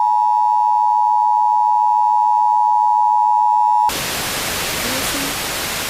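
Emergency Alert System attention signal over FM radio, the steady two-tone alarm at 853 and 960 Hz. It cuts off sharply about four seconds in and gives way to the hiss of FM static between stations as the tuner is scanned.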